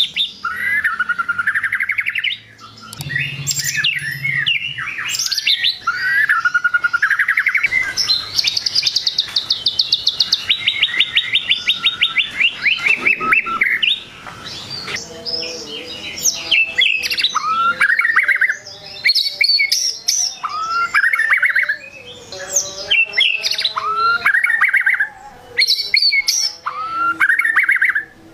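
White-rumped shama singing a varied whistled song. In the middle comes a long, fast trill that slides down in pitch; after it, a rising whistled phrase repeats about every two seconds.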